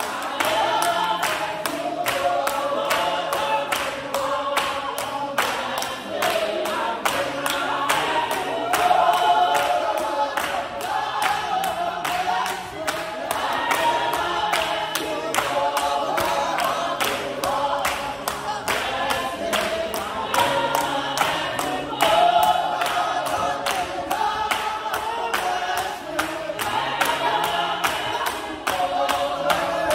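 Congregation singing together in a lively hymn, with a steady beat of handclaps and a bass line underneath.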